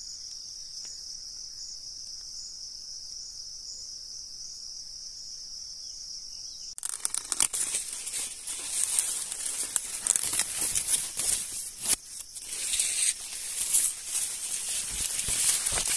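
A steady high-pitched insect chorus, then about seven seconds in a sudden loud, irregular rustling and crackling as maize leaves brush and scrape against the camera microphone while it pushes in among the stalks.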